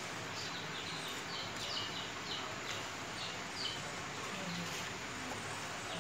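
Birds chirping: a quick run of short, downward-sweeping chirps for about the first four seconds, over a steady background hiss.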